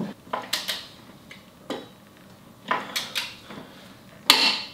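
Torque wrench on a motorcycle rear axle nut being pulled to 95 ft-lb: a string of separate metallic clicks and clinks, with a louder, ringing click near the end as the wrench reaches its set torque.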